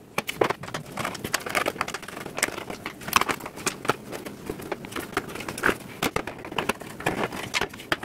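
Rapid, irregular clicking and clattering of a steel desktop PC case being taken apart by hand, fast-forwarded: panels, drive cage and screws knocking and rattling in quick succession.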